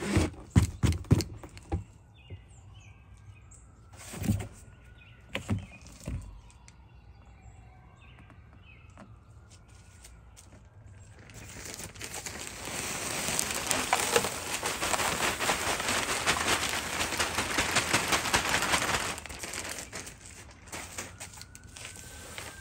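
Several sharp knocks and clicks from a hollow plastic basket being handled. Then a long, steady rustling hiss as loose wood shavings pour into it, easing to softer rustling near the end as hands spread the shavings.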